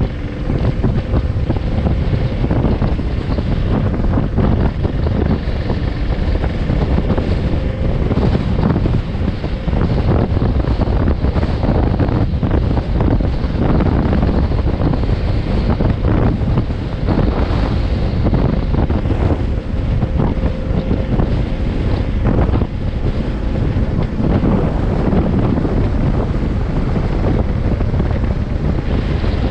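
Heavy wind buffeting on a helmet-mounted action camera's microphone while riding a motorcycle at speed, with the engine running underneath.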